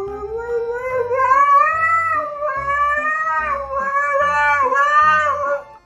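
A husky howling: one long unbroken howl that slowly rises in pitch, then wavers up and down in its second half before stopping shortly before the end.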